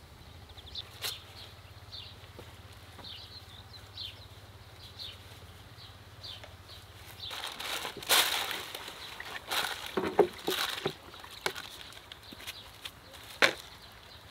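Thin white wrapping crinkling and rustling as it is pulled and tucked over a bull's head on a baking tray, with a few sharp knocks; the handling starts about seven seconds in. Before it, faint bird chirps.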